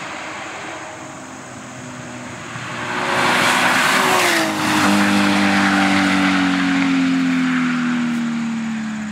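A motor vehicle's engine and tyre noise swelling about three seconds in, then a strong engine tone that falls slowly in pitch as it fades.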